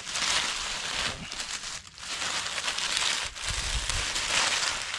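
Dry oak leaves crackling and rustling as a toy monster truck is pushed through them by hand, with short breaks about two seconds and three and a half seconds in.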